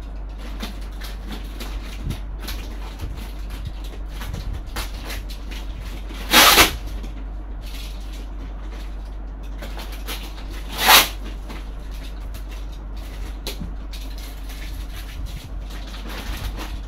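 Rummaging through a cardboard box of plastic-bagged parts: faint rustling and handling noise, with two louder short rustling scrapes about six and eleven seconds in, over a steady low hum.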